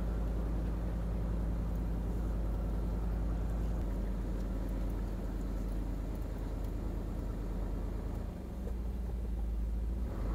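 Pickup truck driving slowly over a rough sandy dirt road: a steady low engine and road rumble.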